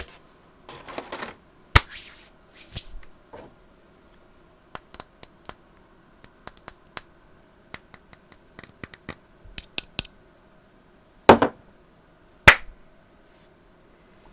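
Ducky One 2 Mini mechanical keyboard with Cherry MX Red switches, keys pressed one at a time rather than typed. Many of the clicks ring with a thin high metallic ping. Two heavier key strikes come near the end.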